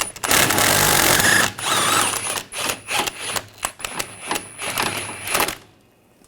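Impact wrench hammering a hub bearing mounting bolt loose, then running in short spurts as it backs the bolt out. It stops about five and a half seconds in.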